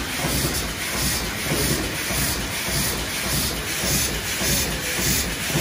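GD33/12X automatic cap assembly machine running: white plastic caps rubbing and rattling as they are fed through the feeder bowl and along the conveyor chute, over a steady mechanical hum, with a hiss that pulses about twice a second.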